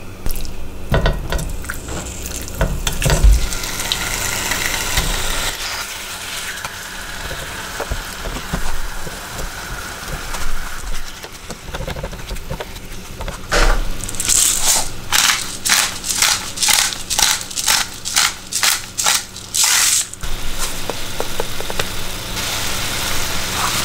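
Chicken breast pieces frying in an oiled nonstick pan with a steady sizzle, after a few sharp clatters early on as they go in. From about 14 to 20 seconds comes a regular run of about two sharp shakes a second as seasoning is put on.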